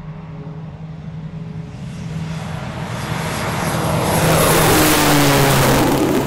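Propeller airplane flying past: its engine and propeller noise swells to a loud peak, and its pitch drops as it goes by.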